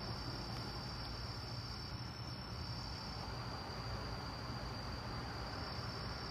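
Crickets chirping in a steady, unbroken high trill, two at slightly different pitches for the first half. A low steady hum and faint hiss run underneath.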